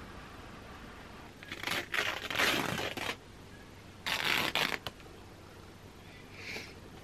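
Old, worn linen fabric being torn by hand into strips: a longer rip about a second and a half in, then a shorter one about four seconds in, with a brief soft rustle near the end.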